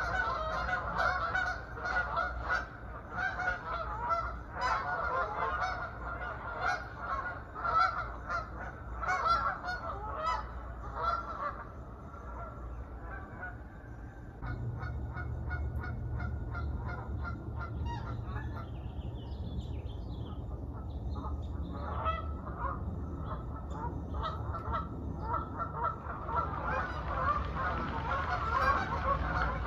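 A flock of geese honking, many calls overlapping. The honking thins out about twelve seconds in and picks up again near the end. Through the middle a low steady rumble sits underneath, with a few higher bird chirps.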